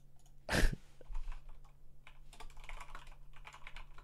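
Typing on a computer keyboard: a run of quick, irregular key clicks. A single short, louder thump comes about half a second in.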